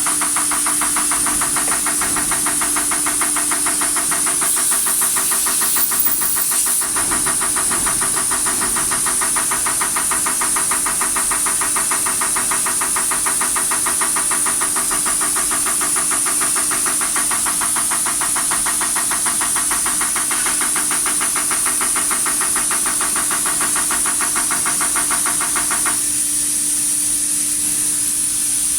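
DAF 105 electronic unit injector firing on a test bench: rapid, even ticking over a steady hiss of spray and a constant hum. The ticking stops about 26 seconds in while the hum and hiss continue.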